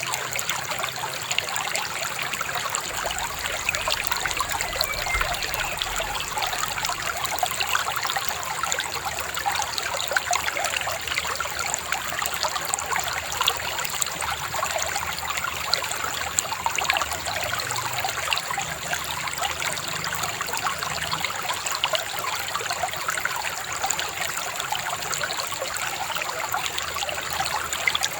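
A babbling river: continuous trickling and splashing water, with a faint steady high-pitched tone above it.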